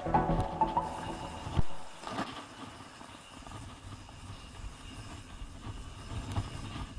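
Electronic music stops about a second and a half in, leaving the low, uneven rumble and rattle of a mountain bike rolling fast down a dirt trail.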